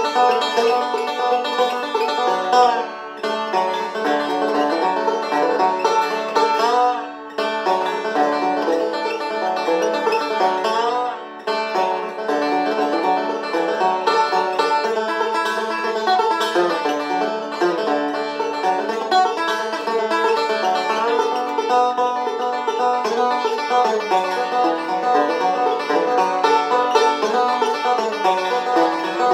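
1989 Gibson Granada five-string resonator banjo played solo, a continuous run of quickly picked notes in a bluegrass style. About 7 and 11 seconds in, a note glides down and back up in pitch, each after a brief dip in the playing.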